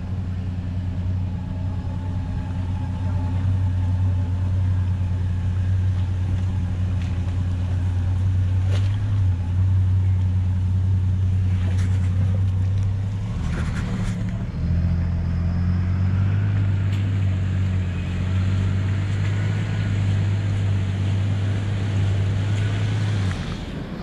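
Four-wheel-drive vehicle's engine running at low, steady revs on a rough sandy track, a deep drone that breaks off briefly about halfway through and then picks up again, with a few short knocks around the break.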